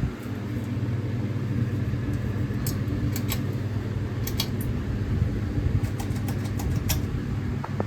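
Sears Roebuck ceiling fan running with a steady motor hum, with a scatter of sharp clicks about midway through.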